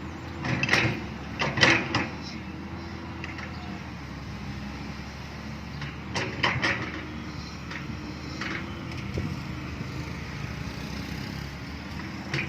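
Diesel excavator engine running steadily under load, with two short bursts of sharp clanking and scraping from the working bucket, about a second in and again about six seconds in.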